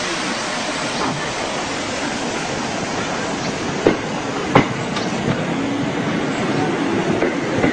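Electric commuter train moving past close by along a platform: a steady rumble of wheels on rail, with two sharp clacks about four seconds in.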